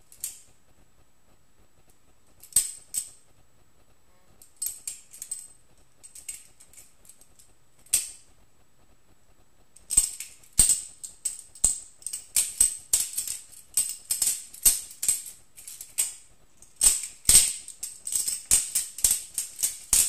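Balisong (butterfly knife) being flipped, its handles and blade clicking and clacking against each other. A few separate clacks at first, then from about halfway a rapid, almost unbroken metallic rattle of clicks, pausing briefly near the end.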